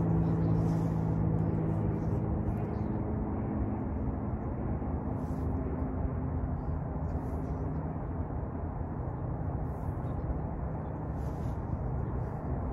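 Steady low rumble of an engine, with a pitched hum that fades away over the first few seconds.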